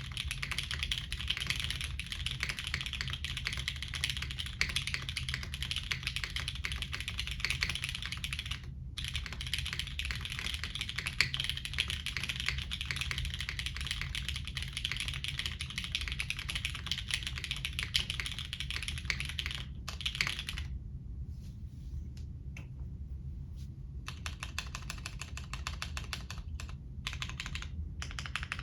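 Fast typing on a GEON F2-84 mechanical keyboard rebuilt plateless with Cherry MX Brown tactile switches and SW Knight V4 stabilizers, keystrokes clacking in quick continuous runs. The typing stops briefly about nine seconds in, and about two-thirds of the way through it slows to a few seconds of sparse keystrokes before picking up again.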